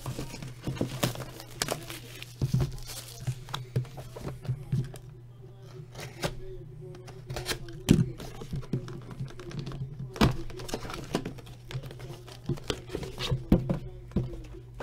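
Plastic shrink wrap being torn and crinkled off a cardboard trading-card box, then the box and its sleeve handled, in a run of irregular crackles and taps over a steady low hum.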